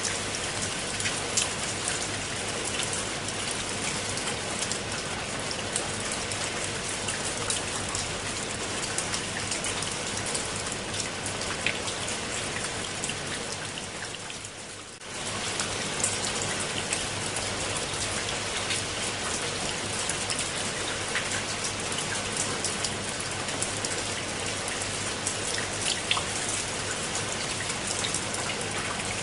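Steady rain falling on leaves and wet concrete steps, a constant hiss dotted with many separate drop ticks. The sound dips briefly about halfway through, then comes back at the same level.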